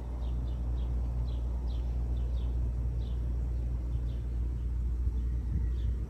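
Outdoor ambience: a steady low rumble with small birds chirping a few times a second over it.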